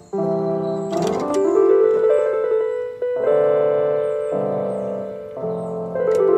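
Electronic keyboard playing a run of held chords in a piano-like voice, each lasting about a second, with a few sharp percussive clicks about a second in and near the end.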